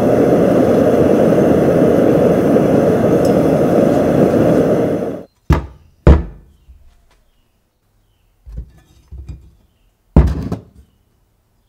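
A steady, loud rushing noise cuts off abruptly about five seconds in. Then a forged Damascus steel chef knife blank is set down on a wooden workbench with two sharp thunks, shifted with a few faint knocks, and set down again near the end with another thunk.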